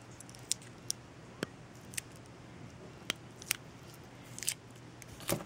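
A series of small, sharp clicks and taps at irregular intervals: fingers handling a spy camera pen's metal end cap.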